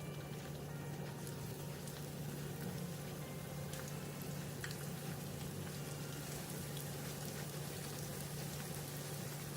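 Food cooking in a pan: light, scattered crackling and popping over a steady low hum.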